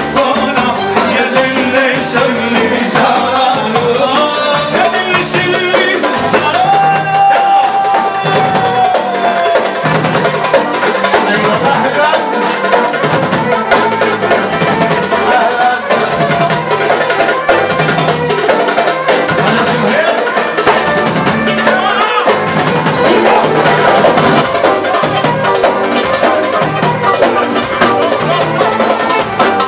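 Live Arabic band music: violin and keyboard melody over a steady beat of darbuka and frame drums, with a long held melody note about seven seconds in.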